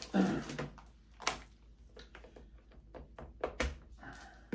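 Plastic packaging being handled and pulled off a coiled rubber hose: light crackles and taps, one sharp click about a second in and a quick run of clicks about three seconds in.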